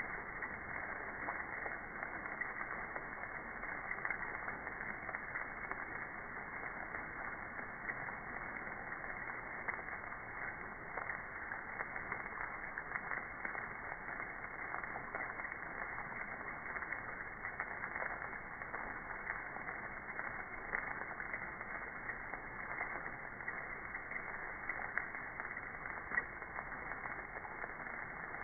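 Hailstones striking hard surfaces in a hailstorm: a steady, dense clatter of countless small ticks that keeps up without a break.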